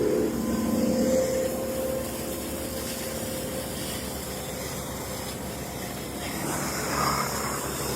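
Small engine, most likely a chainsaw, running steadily with an even hiss over it; its lower engine note fades about a second in.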